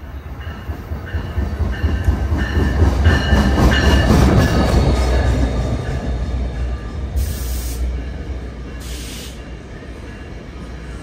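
NJ Transit train led by a PL42AC diesel locomotive moving past. The deep engine and rail rumble swells to a peak about four seconds in and then eases, with a faint wheel squeal, and two short hisses come near the end.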